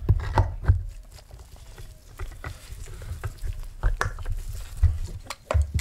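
Handling noise from metal motor parts being fitted together: scattered clicks and knocks, several in the first second and a few more later, with dull thumps on the work mat, as the rotor and end housing of a linear actuator's split-phase induction motor are seated.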